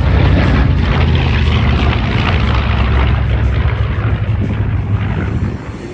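Piston engines of a vintage warbird flying low past the crowd, a loud steady propeller drone that fades somewhat near the end.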